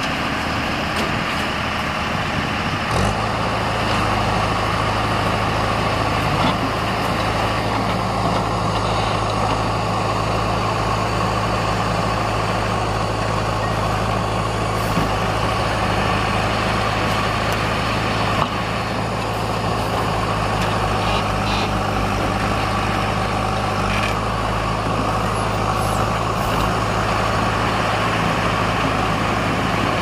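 Tata 2518 tipper truck's diesel engine running steadily while its hydraulic hoist raises the dump body to tip a load of soil. A steady low hum sets in about three seconds in as the hoist takes the load.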